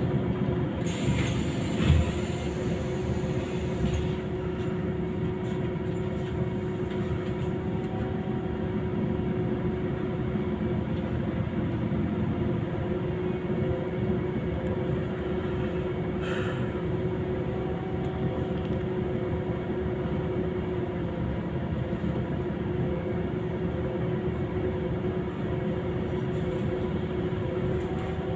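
Scania Citywide CNG city bus heard from inside the passenger cabin while moving in slow traffic: a steady engine and drivetrain drone with a held hum. A short hiss comes in the first few seconds, and a brief rattle about halfway through.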